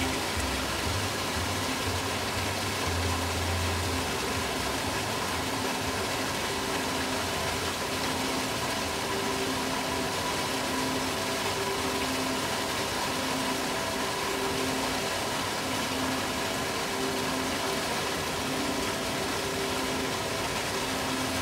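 A steady rush of falling water. Faint sustained notes of ambient music come and go over it, and a deep bass tone fades out about three seconds in.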